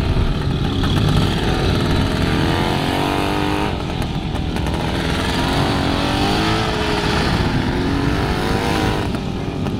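Jawa 354 motorcycle with sidecar, its two-stroke twin engine revving up and easing off again and again as the rider works the throttle through tight, slow turns.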